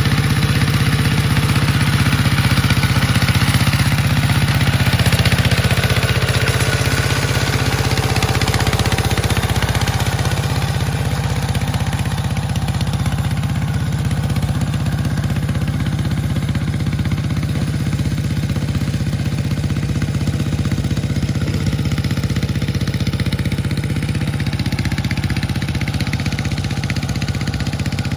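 Engine of a hand tractor with cage wheels, running steadily as it works through a flooded rice paddy. The sound grows a little fainter in the second half as the tractor moves away.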